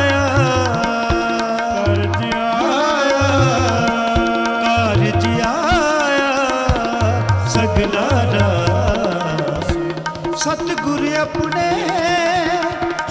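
Shabad kirtan instrumental passage: tabla keeps a rhythm under a melody line that slides and wavers in pitch over steady held tones.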